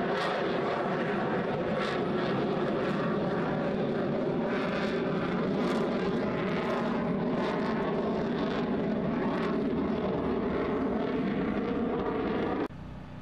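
F-22 Raptor's twin F119 afterburning turbofans in flight: a loud, steady jet roar that cuts off suddenly near the end.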